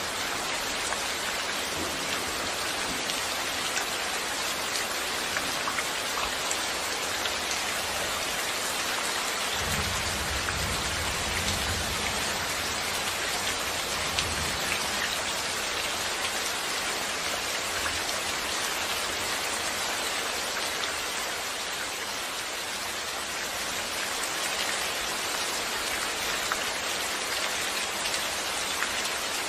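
Steady, heavy rain falling on a surface, a dense hiss dotted with small drop impacts. A brief low rumble swells about ten seconds in and fades away.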